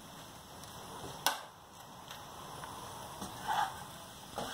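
Quiet handling of a wooden spatula and a steel spoon in a pan of rice on the stove, with a single sharp click a little over a second in and a soft knock near the end.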